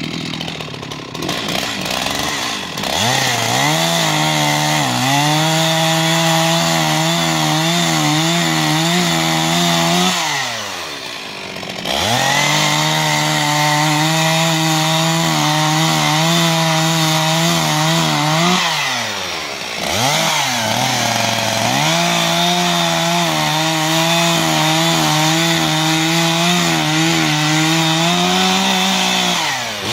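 Stihl two-stroke chainsaw bucking a downed tree. It runs at full throttle in three long bursts, its pitch wavering under the load of the cut, and drops back toward idle between bursts.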